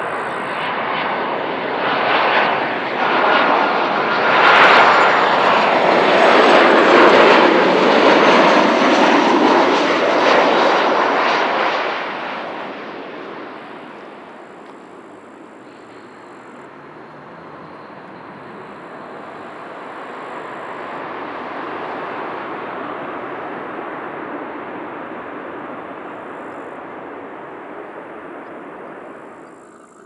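CFM56-7B turbofan engines of a flydubai Boeing 737-800 landing: a loud jet rush and whine as it comes in on approach, strongest from about 4 to 11 seconds in, dropping away sharply at about 12 seconds. Then a quieter, steady engine noise swells and fades as it rolls out on the runway, cutting off just before the end.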